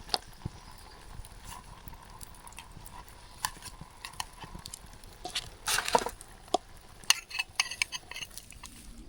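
A metal spoon stirring and clinking in a camp cooking pot of simmering couscous, with scattered taps and a quick run of clinks near the end.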